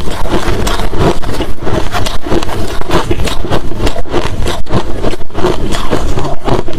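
Close-miked crunching of hard crushed ice and shaved ice chunks being chewed, a dense, irregular run of crunches several times a second.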